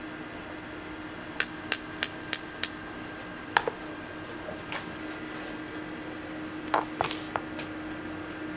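Metal spoon tapping against the rim of an aluminium tray: five quick sharp taps, about three a second, followed by a single tap and a few more taps and clinks later on, over a steady room hum.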